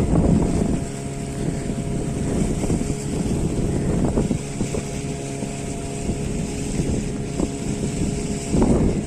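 A small boat's motor running steadily under way, with wind buffeting the microphone.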